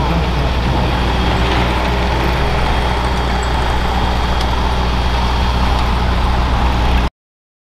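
A tractor engine idling steadily with a deep, even rumble, until the sound cuts off abruptly near the end.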